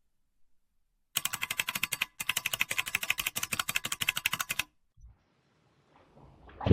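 Rapid typing on a mechanical keyboard, about ten sharp key clicks a second, in two runs with a short break between them. Near the end a rising whoosh begins.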